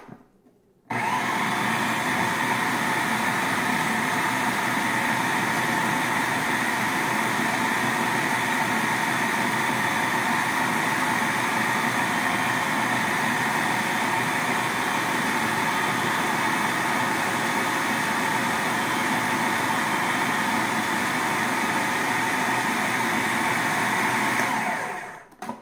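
Electric food processor running steadily, its blade grinding thick falafel dough of soaked fava beans, chickpeas and herbs. It switches on about a second in and runs down near the end.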